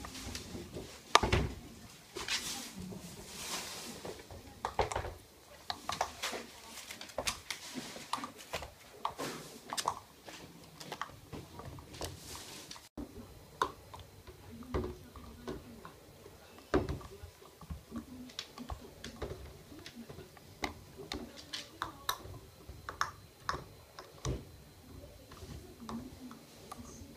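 Miniature dachshund puppy chewing and batting at an IQ puzzle toy: irregular clicks and knocks, with the towel underneath rustling.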